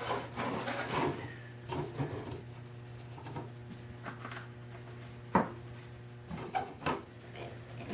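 Light knocks, clicks and rubbing as small metal hardware is handled and fitted on a wooden machinist's chest, with one sharper click about five seconds in.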